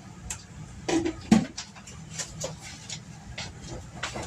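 Kitchen handling sounds: a run of short knocks and clicks as butter goes into a mixing bowl, the loudest knock about a second and a half in.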